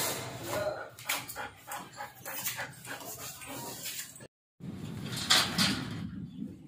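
Siberian husky puppies barking in many short yaps. The sound cuts out for a moment about four seconds in.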